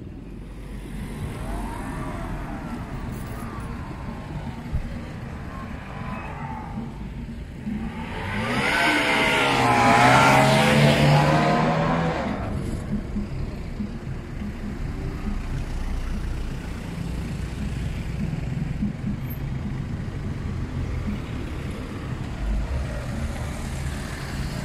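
Road traffic: a steady low engine rumble. About eight seconds in, a vehicle passes close, its engine note rising and falling; it is loudest around ten seconds and fades a couple of seconds later.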